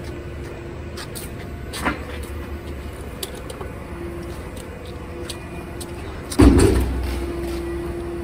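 A steady low mechanical hum with a few light clicks, and one heavy thump about six and a half seconds in, after which a steady hum continues.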